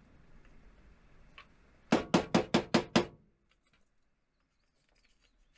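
Six quick hollow knocks in a row, about five a second, as a salt container is tapped over the potato pan.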